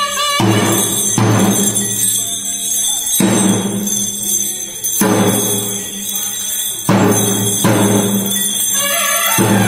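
Music led by deep drum strokes, each ringing out, coming every one to two seconds.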